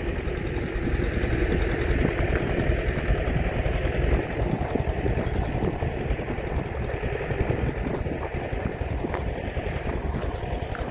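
A tractor engine running steadily, a continuous low rumble.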